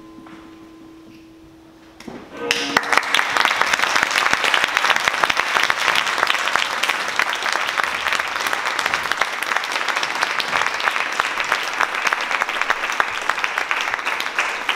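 Audience applauding. It breaks out about two seconds in as the last held notes of music die away, then goes on as steady, dense clapping.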